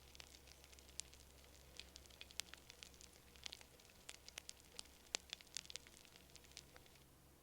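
Wood bonfire crackling softly: irregular sharp snaps and pops scattered throughout, a few standing out louder than the rest.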